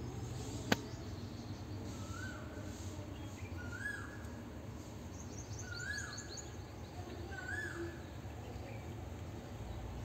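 A bird calls four times, a short rising-then-falling note every couple of seconds, with fainter high chirps among them, over a steady low hum. A single sharp click sounds just under a second in.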